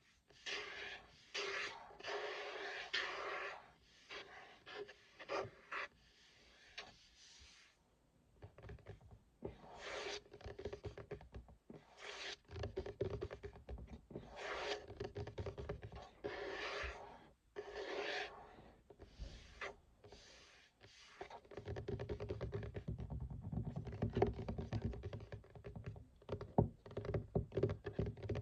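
Tapping and scratching on a desk surface: scratchy strokes lasting a second or two alternate with quick runs of taps, and near the end the taps grow denser and heavier, with low thuds.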